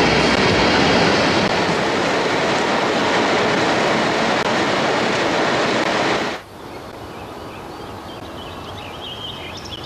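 Loud, steady machinery roar of the generating sets in the underground machine hall of the Vianden pumped-storage power station. It cuts off suddenly about six and a half seconds in, giving way to quiet open-air ambience with a few high bird chirps near the end.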